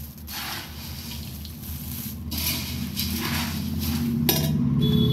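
Dry puffed rice rustling and scraping against an aluminium pot as it is stirred with a metal spatula, in repeated sweeping strokes about once a second with a clink near the end. A steady low hum runs underneath.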